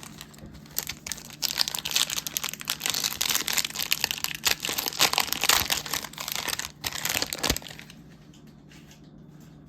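A trading-card pack's plastic wrapper being torn open and crinkled by hand, a dense crackling that lasts about seven seconds and stops shortly before the end.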